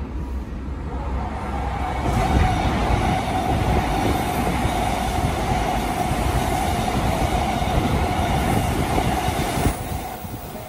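Odakyu commuter train passing through the station at speed alongside the platform. The rush of wheels on rail builds over the first two seconds and holds loud, with a steady ringing tone over it. It cuts off sharply near the end as the last car goes by.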